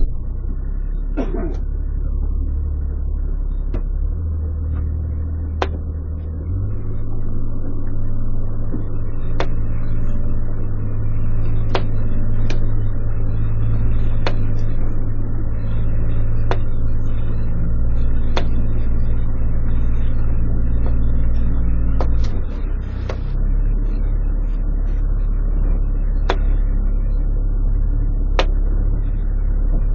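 Small fishing boat's engine running with a steady low rumble; it picks up about six seconds in and eases back again about twenty-two seconds in. Faint sharp clicks sound now and then over it.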